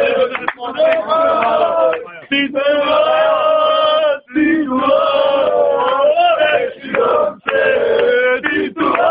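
Group of male football fans singing a chant together, in long sung phrases with brief pauses between them.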